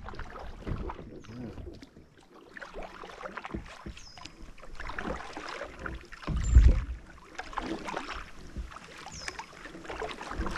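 Kayak moving across the water: irregular splashing and sloshing of water against the hull, with a heavier knock about six and a half seconds in. A short high chirp recurs every few seconds.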